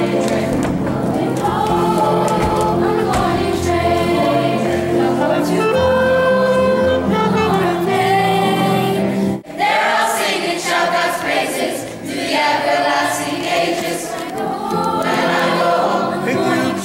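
A young stage cast singing together as a choir, with a clarinet playing among the voices. About halfway through the music breaks off abruptly and a different sung passage begins.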